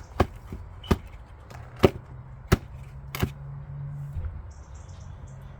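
Five sharp knocks of hard objects striking, under a second apart, over a low steady hum.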